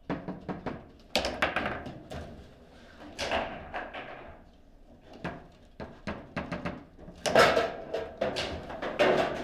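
Table football (foosball) play: quick irregular knocks and clacks of the ball striking the plastic figures and the table walls, and of rods being shot and slammed, in louder flurries about a second in, around three seconds, and again near the end.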